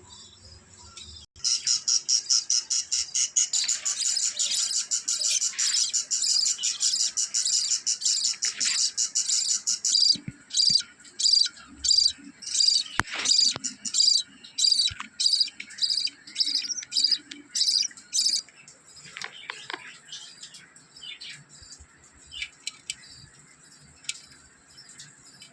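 Budgerigars chirping: a dense, rapid high-pitched chatter for the first several seconds, then a run of loud repeated chirps about two a second that stops about two-thirds of the way in, followed by fainter scattered calls.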